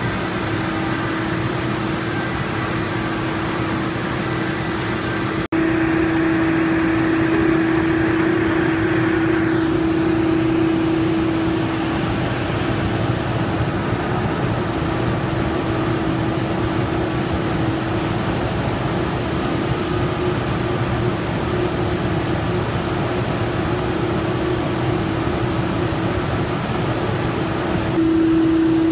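Steady hum of industrial machinery at a paper slitter rewinder, with a constant mid-pitched drone over an even noise; the level steps up slightly after about five seconds, and a faint falling whine comes a few seconds later.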